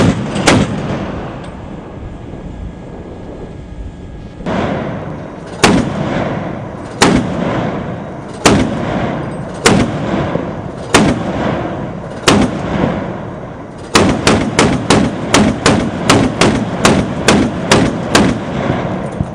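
Shipboard gun firing single rounds at a target on the water: one shot at the start, then a steady series of shots about every second and a quarter, then a quicker run of about three shots a second near the end. Each shot is a sharp crack with a short booming tail.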